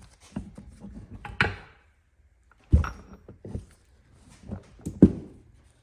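Irregular knocks and clunks of metal parts of a Muncie M21 four-speed transmission being handled and struck during disassembly, about five in all, the loudest near the end.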